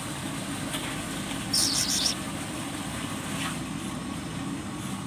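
Steady low motor hum, with a short harsh hiss in a few quick pulses about one and a half seconds in.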